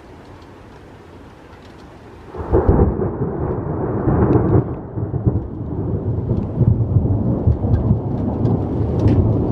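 Steady rain, then about two seconds in a loud thunderclap breaks and rumbles on, deepest and strongest for the first couple of seconds. Faint ticks of drops or hail land over it.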